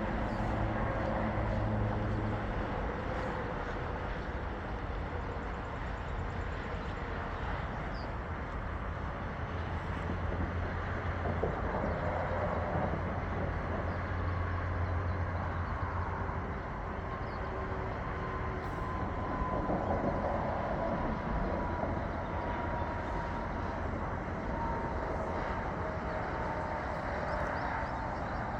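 Train rumbling past steadily, with faint drawn-out high tones over a low rumble.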